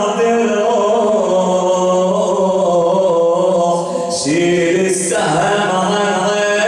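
A man chanting a mourning lament into a microphone, the cleric's Ashura elegy: long, held, wavering notes. About four seconds in there is a short break, then a new phrase begins and rises.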